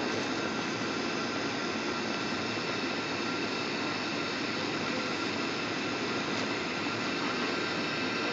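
Jet airliner cabin noise on the landing approach: engines and rushing airflow heard from inside the cabin, steady and even, with a faint high whine.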